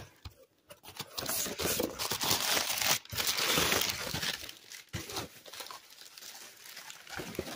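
Packing material crinkling and rustling as a cardboard shipping box is unpacked. There are two long stretches of rustling, split by a short pause about three seconds in, followed by lighter handling noises.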